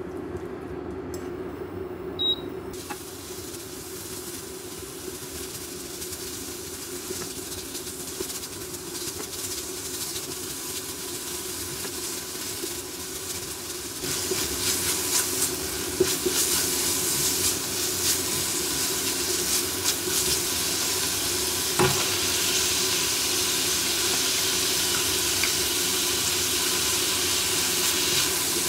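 Minced meat sizzling as it fries in a ceramic-coated frying pan, stirred with a spatula that scrapes and taps the pan now and then. The sizzle gets louder about halfway through as the meat browns.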